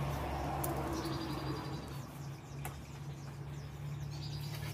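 A steady low hum, with a bird's high, even call twice: about a second in and again near the end. There is a single light click in the middle.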